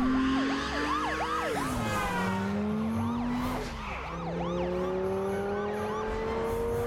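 Lamborghini Gallardo's V10 accelerating hard through the gears, its pitch climbing and then dropping at each upshift, twice. Over it a portable police siren yelps with a fast rising-and-falling wail, several cycles a second.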